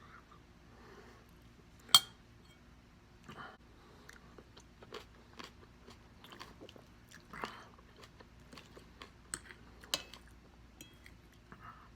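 A person chewing and biting food close to the microphone, with soft crunches and small wet mouth clicks, and two sharper clicks about two seconds in and near the ten-second mark.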